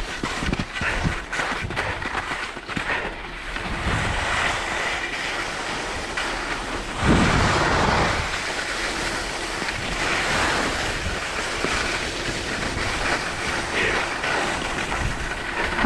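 Skis sliding and scraping over packed snow at speed, with wind rushing over the microphone. The rush swells about seven seconds in.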